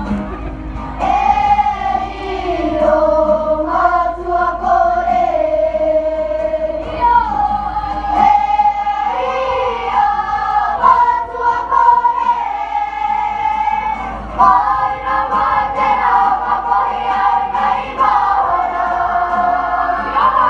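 A children's kapa haka group singing a Māori waiata together to guitar accompaniment, the voices coming in about a second in.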